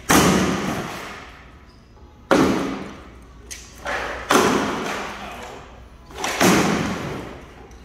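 Sledgehammer blows smashing a bathtub shell: four heavy crashes about two seconds apart, each followed by a long fading tail of rattling pieces and echo from the large room.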